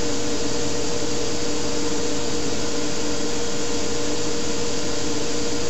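Steady, even hiss with a faint steady hum underneath, unchanging throughout: the noise floor of the recording, with no voice or music over it.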